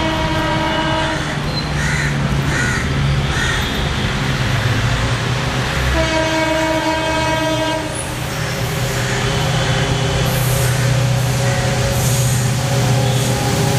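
Indian Railways WDG4 diesel-electric locomotive, with its EMD two-stroke V16 engine, approaching and sounding its horn twice: a short blast at the start and a longer one about six seconds in. The engine rumble swells toward the end as the locomotive draws near.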